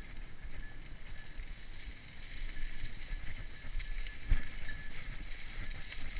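Mountain bike being ridden on a dirt trail: a steady rumble with light rattling from the bike, and one sharp knock about four seconds in.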